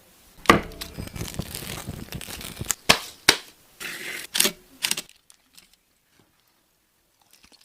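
Food and utensil handling while the cooked chicken is served: a run of sharp clicks, scrapes and crinkles with a few louder knocks, stopping about five seconds in.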